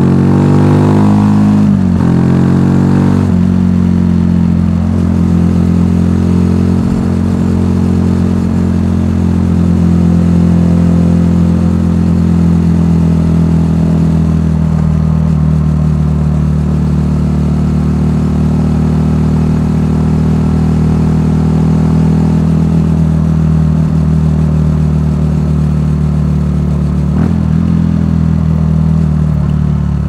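Benelli TNT 125's single-cylinder four-stroke engine through its stock exhaust while riding. It revs up twice in the first few seconds with a gear change between, then holds a steady cruising note, dipping slightly around halfway and rising briefly near the end.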